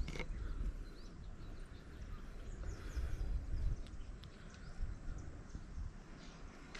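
Wind rumbling on the microphone, with scattered short high bird chirps and a single click right at the start.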